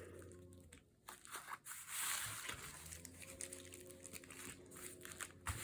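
Paper and the crinkly plastic-mailer cover of a squishy notebook rustling and rubbing as they are handled and pressed by hand, starting about a second in as irregular scratchy crinkles with small clicks.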